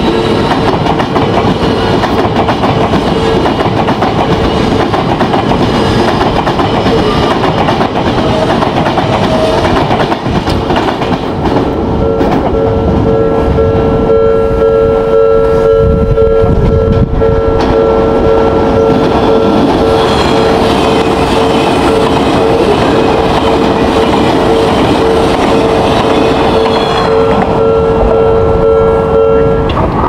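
Japanese level-crossing warning bell ringing steadily, at first under the clatter of an Odakyu electric commuter train's wheels passing close by. Once the train has gone, about twelve seconds in, the bell rings out clearly on its own and stops near the end.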